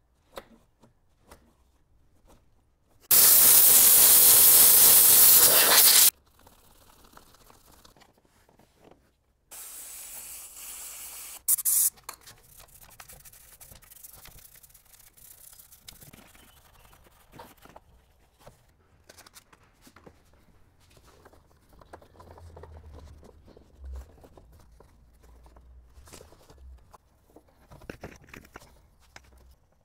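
A pressurised jet hissing steadily: a loud burst of about three seconds, then a second, quieter one of about two seconds that ends with a brief sharper spurt. Faint scattered clicks and rubbing come between and after.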